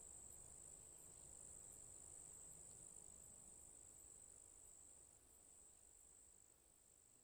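Faint night ambience of crickets: a steady, high-pitched insect trill over a low hiss that fades away in the last two seconds.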